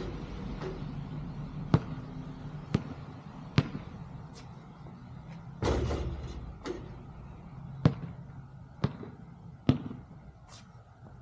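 Basketball bouncing on a hard surface: three sharp bounces about a second apart, a longer, heavier hit a little before the middle, then three more bounces about a second apart.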